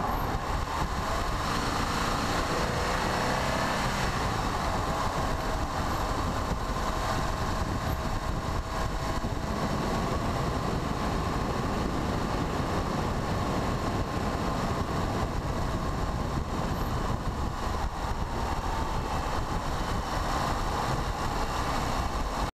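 Car driving slowly behind a skateboarder: steady engine and tyre noise on asphalt, with a faint tone that slowly drifts up and down as the speed changes.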